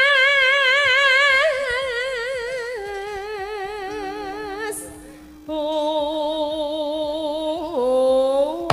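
A Javanese sinden (female singer) singing through a microphone and PA, holding long, wavering notes with heavy vibrato. There is a short break about five seconds in, then a second held note that slides upward near the end.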